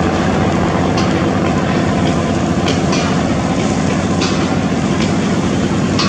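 A river passenger launch's diesel engine running steadily close by, a dense pulsing drone, with water churning in its wash.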